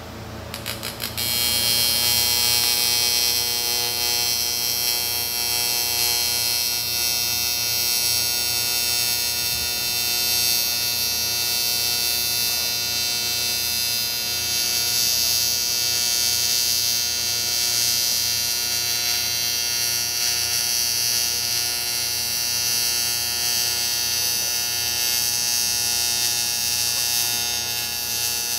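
A motor starts after a few clicks about a second in, then runs steadily at one speed with a constant hum and whine.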